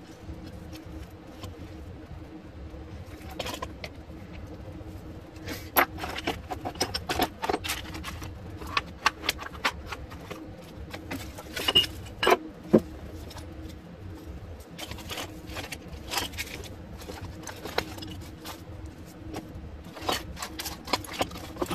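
Metal hand tools clinking and clattering as they are handled and sorted, in irregular knocks with a few louder clanks in the middle, over a steady low hum.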